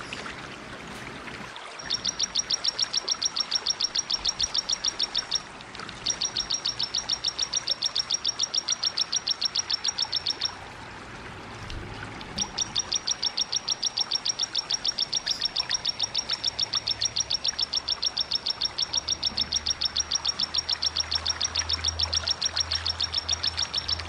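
A small cici-type songbird giving a rapid 'tembakan' trill: sharp, high notes repeated about ten a second, in three long runs with short breaks between them, over a steady background hiss.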